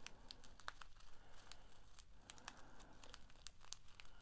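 Faint crinkling of a small plastic bag of diamond-painting drills being handled and turned in the fingers, as scattered soft crackles.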